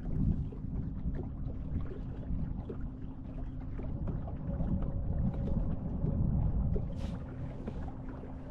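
Boat motor running at slow trolling speed: a steady low hum over rumbling wind and water noise, with a brief sharp tick about seven seconds in.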